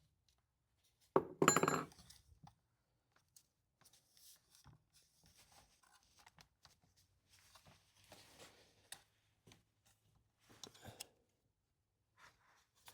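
A loud short clatter of hard parts about a second in, then faint scattered taps, scrapes and rustles of small parts being handled while a chainsaw's recoil starter housing and its mounting screws are worked on.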